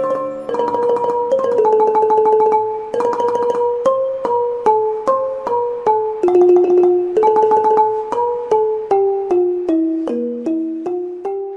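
Instrumental music: a piano-like keyboard plays a melody of struck notes in two parts moving together, with quickly repeated notes in places, stepping downward in pitch and softening near the end.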